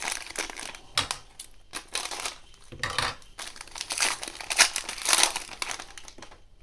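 A trading-card fat pack's wrapper being torn open and crinkled in the hands: a run of irregular crackling rustles, loudest about four to five seconds in.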